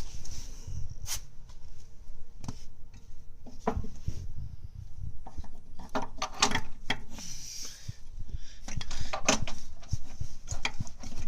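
Scattered knocks, clinks and scraping of metal parts being handled as a car's drive axle is worked into place.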